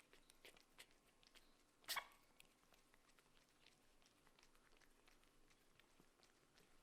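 Near silence: faint scattered scratches and clicks of kittens moving about in their box, with one brief louder sound about two seconds in.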